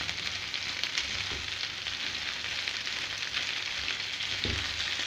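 Chicken wings and diced potatoes sizzling steadily in hot oil in a non-stick frying pan, with a silicone spatula stirring them and giving a couple of soft knocks against the pan.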